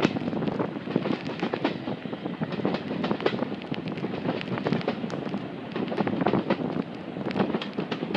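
Moving passenger train heard from outside a carriage window: wind rushing and buffeting the microphone over the steady running noise and rattle of the coach on the track, with dense irregular crackling throughout.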